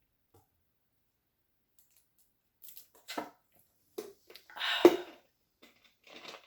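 A few short bursts of crackling and wet squishing, with one sharp snap just under five seconds in: shellfish shell, king crab or shrimp, being cracked and pulled apart.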